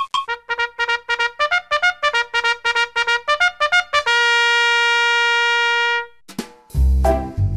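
Intro music: a run of quick, short notes, then one held note for about two seconds. After a brief break, a bouncy tune with a heavy bass beat starts near the end.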